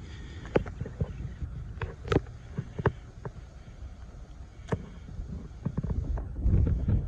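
Wind buffeting the microphone as a low, uneven rumble, with a few sharp clicks and taps scattered through it and a louder gust near the end.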